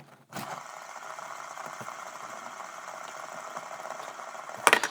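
Fidget spinner's bearing whirring steadily as it spins, with a few sharp clicks near the end as it is handled.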